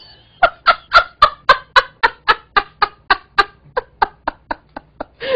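A woman's uncontrollable fit of laughter: a rapid, even run of breathy "ha" pulses, about four a second, growing weaker toward the end.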